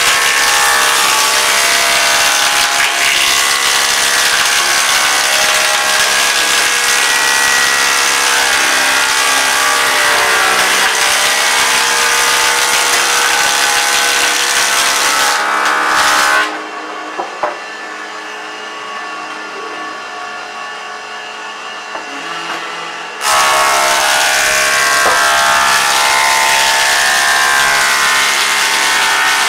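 Thickness planer cutting a timber board: a loud, steady whine with the rush of the cutter head through the wood. A little past halfway the cutting stops and the machine runs on much quieter for about seven seconds, then loud cutting starts again as the next pass goes in.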